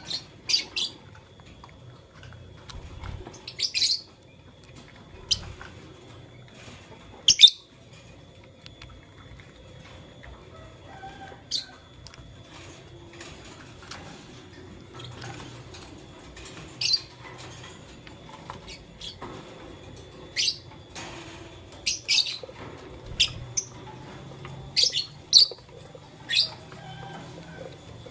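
Lovebirds giving short, sharp high-pitched chirps at irregular intervals, about a dozen calls, some much louder than others.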